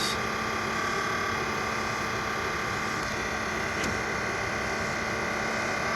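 Tesla air-conditioning compressor running with a steady whirring, grinding noise with a few steady tones in it, the sign of worn bearings that are on the way out.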